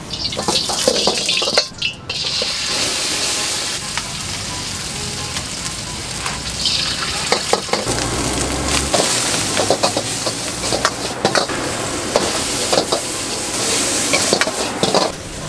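Egg and rice vermicelli sizzling as they are stir-fried in a hot wok, with a metal ladle scraping and clanking against the wok.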